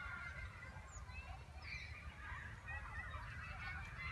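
Scattered bird calls, goose-like honks and chatter, over a steady low wind rumble on the microphone.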